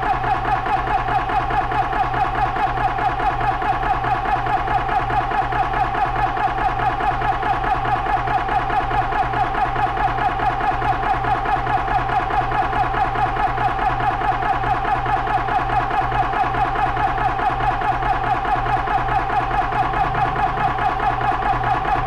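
Benjamin Traveler 4500 PSI portable PCP air compressor running under load, a steady hum with a rhythmic pulse of about five beats a second. It is filling a PCP air rifle's air reservoir, with the pressure climbing from about 1900 psi toward its 3000 psi shut-off.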